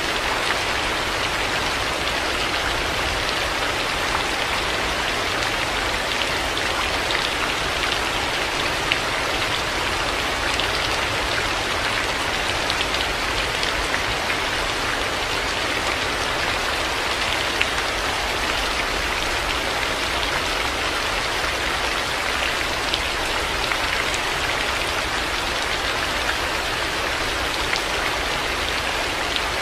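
Heavy rain falling steadily, a dense hiss of drops with a few sharper individual drop ticks.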